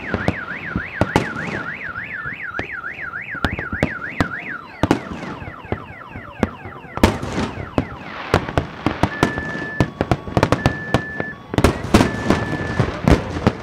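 Fireworks going off in a rapid run of bangs and crackles, with a car alarm warbling up and down about three times a second through the first four and a half seconds. Falling whistles follow, and later three short, steady high beeps.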